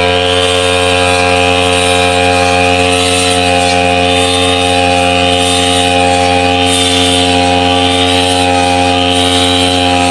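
Backpack brush cutter engine running steadily at working speed while cutting tall wet grass, its pitch holding even.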